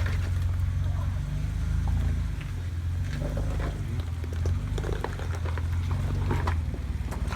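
Jeep engine running steadily at low revs, rising and easing a little, with scattered clicks and knocks over it.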